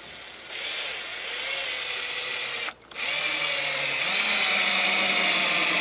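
Cordless drill-driver running under load, driving a long screw into wood, in two runs with a brief stop a little under three seconds in.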